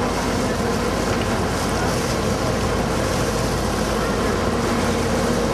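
River tour boat's engine running steadily under way, a constant drone mixed with wind and water noise.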